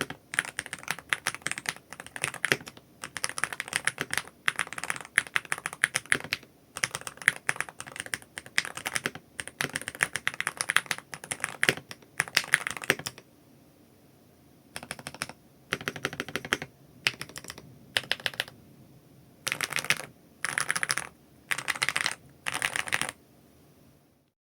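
Lubed Gateron Jade Max magnetic switches in an SC Bridge 75 HE keyboard being typed on. Continuous fast typing runs for about thirteen seconds, then the presses come in a series of short bursts of rapid keystrokes.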